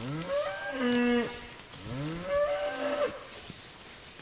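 Beef cows mooing twice, each moo rising in pitch and then held for about a second; the second comes about two seconds in.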